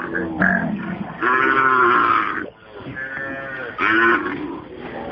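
A herd of cattle lowing: a string of long, loud calls, the longest lasting over a second.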